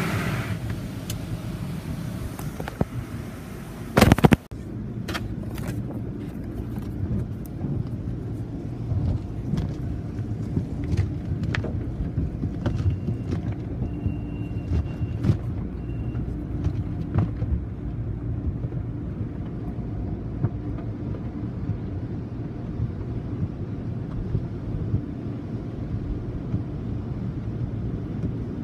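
Automatic tunnel car wash heard from inside the car: a steady low wash of machinery and water noise, with scattered knocks and taps on the body and one loud, short burst of noise about four seconds in.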